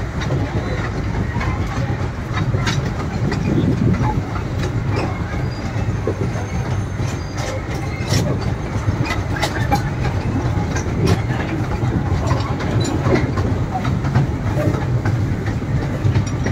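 Amusement-park toy train running along its track, heard from on board: a steady low rumble with scattered sharp clicks from the wheels and cars.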